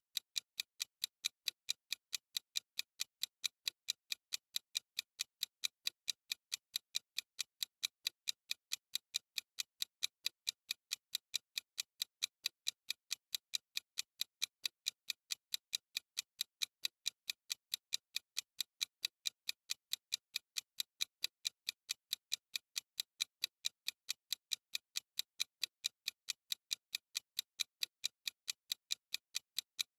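Timer's ticking sound effect: quick, evenly spaced, sharp ticks, a few each second, keeping a steady beat.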